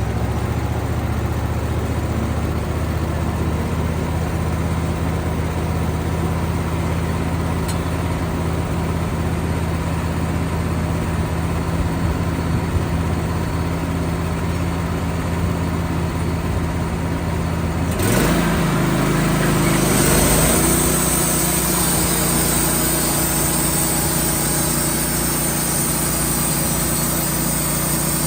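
Band sawmill's engine running steadily. About two thirds of the way through its note shifts for a couple of seconds, then settles into a new steady pitch with a high hiss added.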